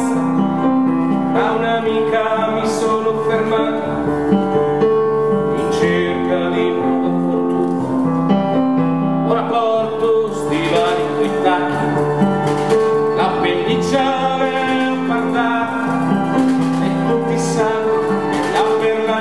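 Live acoustic ensemble music, with acoustic guitar and violin holding sustained notes under a male singing voice.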